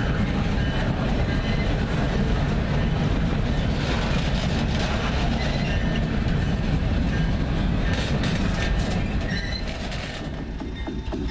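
Freight cars rolling past at track level, boxcars and open coal hoppers: a steady heavy rumble with the clatter of steel wheels on the rails. The sound drops off about ten seconds in.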